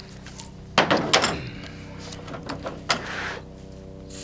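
Potato cannon being loaded with a ramrod: two hard knocks about a second in, then smaller clicks and a scraping slide as the potato is pushed down the barrel.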